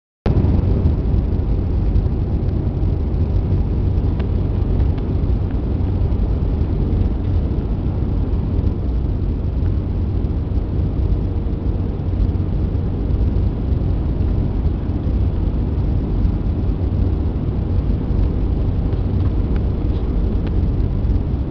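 Steady low roar of a jet airliner in flight heard inside the cabin, from the underwing turbofan engines and the airflow, with a faint steady hum running under it.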